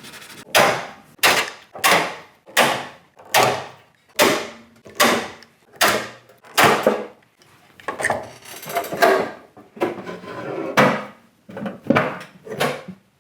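Hand rivet gun setting rivets in a metal tool box: a steady run of sharp strokes, about one every three quarters of a second, each dying away quickly.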